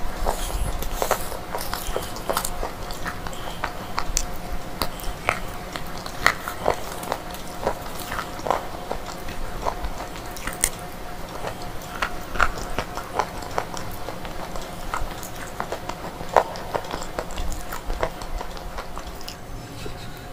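Crunching of crumbly dry slate, bitten and crushed between fingers over a plastic tray: many irregular sharp crackles, with a faint steady hum underneath.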